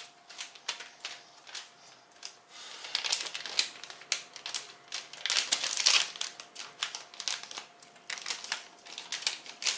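Silvery anti-static plastic bag crinkling and rustling as it is handled and opened, with scattered sharp clicks of small parts. The crinkling is densest and loudest in the middle.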